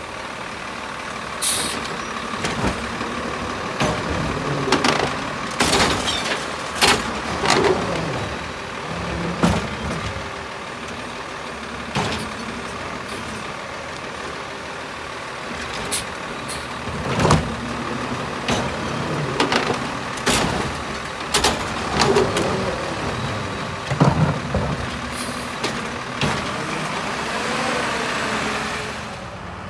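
A CCC garbage truck with an automated side-loader arm picks up recycling carts. The diesel engine runs and rises and falls in pitch as the hydraulic arm works, with repeated bangs and clatters as carts are lifted, shaken out into the hopper and set back down.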